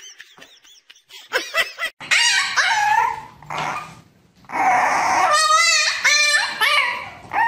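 A puppy in a wire crate yelping and howling, a string of high cries whose pitch glides and wavers. The longest, loudest cries come around the middle, with shorter yelps near the end.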